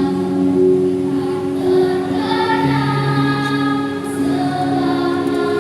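Primary-school children's choir singing in parts, several voices holding long notes together in harmony.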